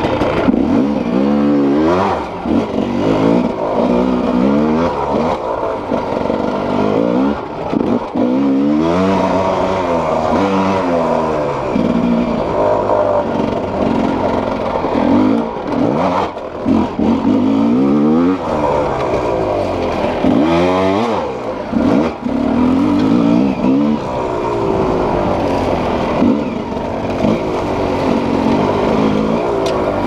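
Enduro dirt bike engine revving up and down again and again as it is ridden, its pitch rising and falling every second or two, heard close up from the bike itself.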